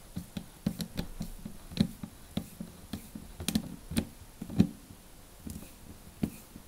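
Metal worm-drive hose clamp on a dishwasher hose being tightened with a long-shafted driver: irregular small clicks and ticks, a few a second, the sharpest about four and a half seconds in.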